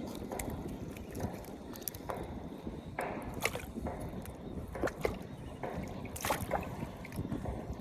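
Sea water sloshing and lapping at a shallow, rocky shore, with a few short, sharp clicks.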